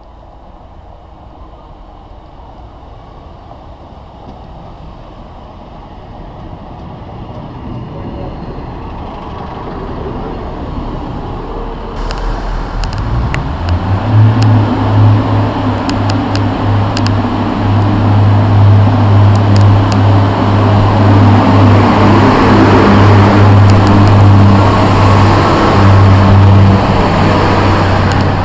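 Diesel train rumble growing louder as a unit approaches. Then, close by, a Class 144 Pacer diesel multiple unit's underfloor engine running loud and steady, its note stepping up in pitch at first, with scattered sharp clicks. The sound cuts off abruptly at the end.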